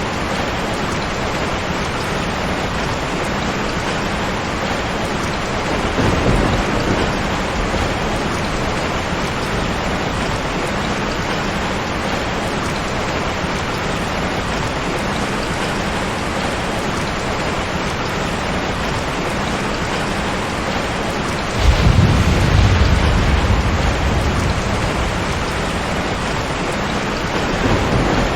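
Steady rain with thunder: a short low rumble about six seconds in, then a sudden, louder peal about twenty-two seconds in that rolls on and fades over a few seconds, and another rumble building near the end.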